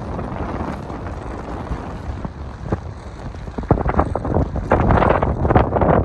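Wind buffeting the microphone: a gusty rumbling noise that grows louder and more uneven in the second half.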